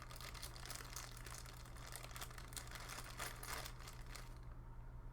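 Faint rustling and small clicks of hands handling small CPU-cooler mounting pegs and brackets, stopping about four seconds in. A steady low electrical hum runs underneath.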